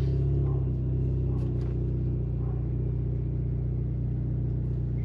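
Turbocharged Ford Fusion cruising at a steady speed, heard from inside the cabin: an even, low engine and road drone. There is no droning or bearing noise from the rear differential, which now runs quiet.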